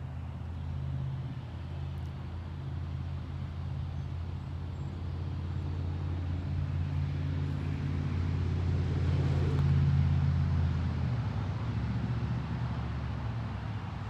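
An engine running steadily with a low hum, growing louder to about ten seconds in, then dropping back a second later.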